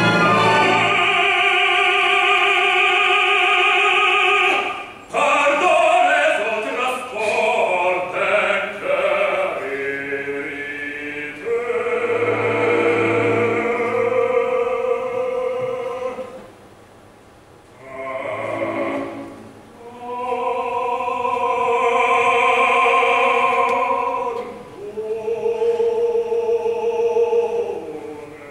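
Operatic baritone singing long held notes with vibrato, phrase after phrase, with a short quiet break a little past the middle.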